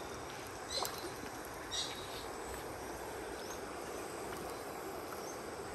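Steady outdoor background noise with no clear single source, and a couple of faint short high chirps about one and two seconds in.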